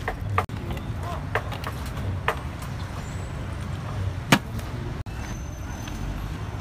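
Steady low rumble of street traffic, with a handful of short sharp clicks and knocks from a metal fish-grilling basket and a tray of coarse salt being handled. The loudest knock comes about four seconds in.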